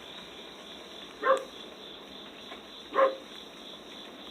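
Two short animal calls about a second and a half apart, part of a series repeating every couple of seconds.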